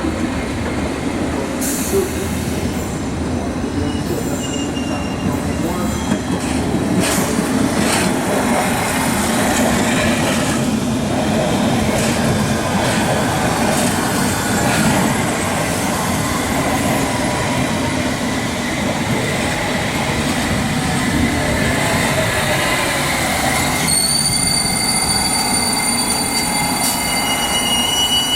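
A train running through the station with a steady rolling rumble from its wheels on the rails. In the last few seconds a high, steady wheel squeal joins in.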